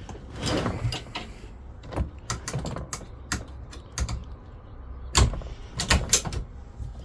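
Irregular clicks and knocks as a hard plastic Milwaukee Packout tool box and its mounting bracket are handled and fitted together, with a few louder knocks about five to six seconds in.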